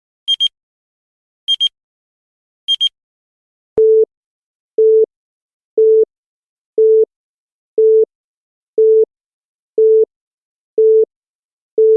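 Electronic beep sound effects: quick high-pitched double beeps repeating a little over once a second, then, after a click about four seconds in, a lower single beep repeating steadily about once a second in the manner of a telephone busy tone.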